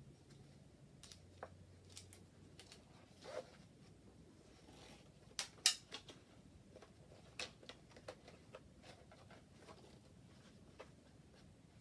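Light handling noise from hands working over a plastic chainsaw housing and its strap on a bicycle's rear rack: scattered small clicks, taps and rustles, the sharpest two clicks about five and a half seconds in.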